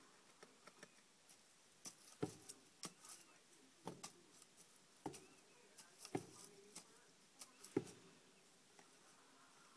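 Pet rabbit moving about in hay and wood-shaving cage bedding: faint rustling with irregular light taps and knocks, the strongest roughly once a second in the middle of the stretch.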